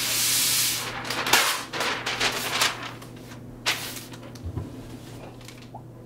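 A sheet of paper pulled off a roll, a loud rush of noise lasting about a second, then crackling and rustling as the sheet is handled and smoothed flat, with one more sharp rustle a little before four seconds in.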